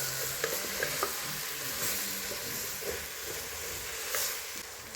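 Food sizzling as it fries in a pan while being stirred, with several sharp clicks of the spoon against the pan.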